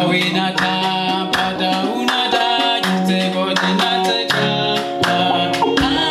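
Live band music: sustained instrument and bass notes over a steady percussion beat, with singing.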